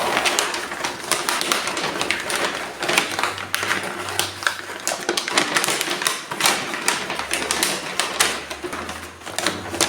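Paper crinkling and rustling as it is folded by hand over the end of a cardboard box, with many small irregular crackles throughout.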